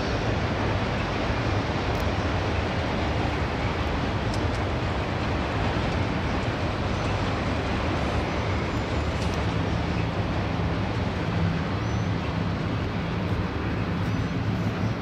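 Freight train of autorack cars rolling past on steel rails, a steady rumble with a low hum that deepens into a second tone about halfway through.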